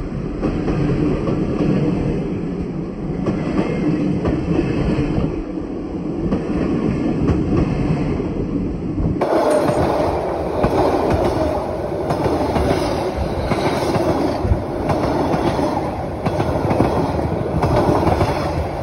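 Train wagons and passenger coaches rolling past at close range: a steady rumble of steel wheels on the rails with clickety-clack. The sound turns abruptly brighter about halfway through.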